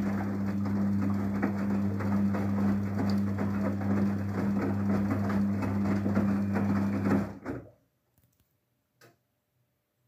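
Daewoo DWD-FT1013 front-loading washing machine moving water during its softener rinse: a steady electric hum under rushing, gurgling water. It cuts off abruptly about seven and a half seconds in, and one faint click follows near the end.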